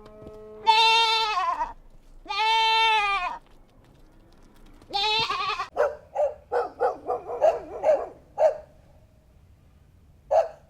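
Bleating: two long bleats of about a second each, a third around the middle, then a quick run of short, wavering bleats and a single last one near the end.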